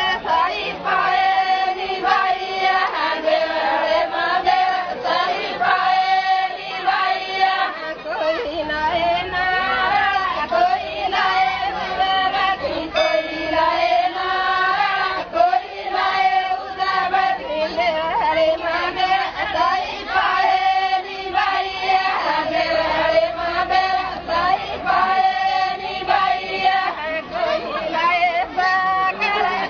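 A group of women singing a Banjara lengi folk song together in unison, the melody going on without a break.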